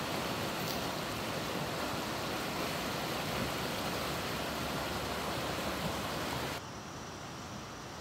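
Swollen, muddy stream rushing over rock rapids: a loud, steady rush of water. About two thirds of the way through it cuts off suddenly, leaving a quieter steady hiss.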